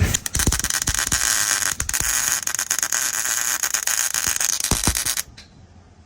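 Electric arc welding crackling steadily for about five seconds as a weld is laid on roll cage tubing, then stopping suddenly when the arc is broken.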